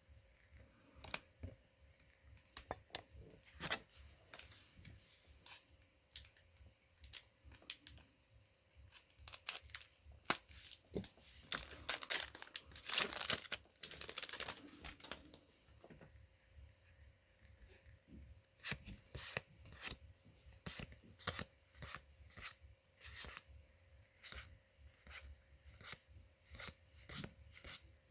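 Foil wrapper of a Magic: The Gathering booster pack being torn open and crinkled, loudest about halfway through, with light clicks and rustles of cards being handled before and after.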